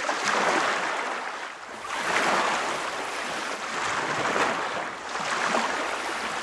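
Small waves washing in, a rushing of water that swells and fades every second or two.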